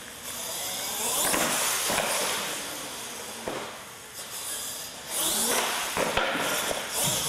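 Radio-control monster truck driving on a smooth concrete floor: its motor revs up and down in two surges, with tyres scrubbing and a few sharp knocks.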